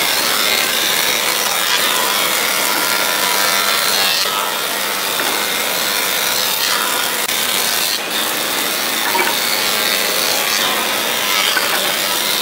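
Thickness planer running while boards are fed through it, its cutterhead planing the wood with a steady noise.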